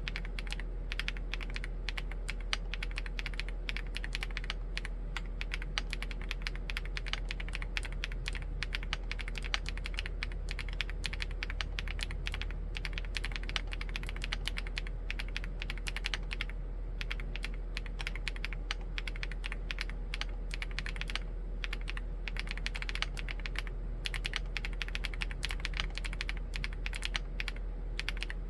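Chilkey ND75 mechanical keyboard with Gateron EF switches being typed on steadily and fast, keystrokes following close on one another, with short pauses about 16 and 21 seconds in.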